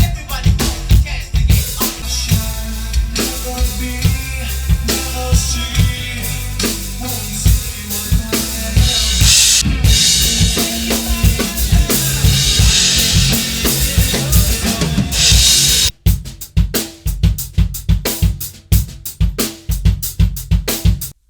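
Drum kit played hard, with kick, snare and cymbals, over music with a sustained bass line. About 16 seconds in the music drops out and the drums carry on alone in quick hits, then stop abruptly just before the end.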